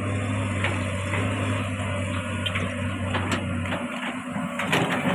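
Komatsu PC200 long-arm excavator's diesel engine running steadily under load while it digs, with a few sharp knocks and clanks from the machine working the soil, the loudest just before the end.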